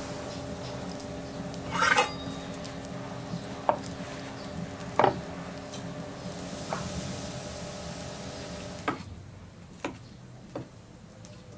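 A knife cutting through soft boiled potatoes, with a few sharp knocks and clicks scattered through. Under them is a steady background hum and hiss that drops away about nine seconds in.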